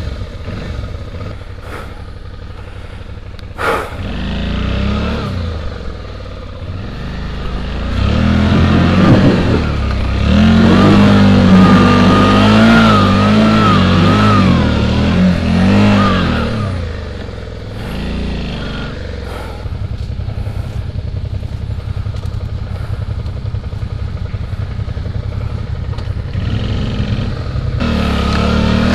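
Suzuki V-Strom motorcycle's V-twin engine running at low speed on a muddy trail. From about 8 to 16 seconds in it is revved hard, the revs wavering up and down, then it settles back to a steadier low running. A single knock about four seconds in.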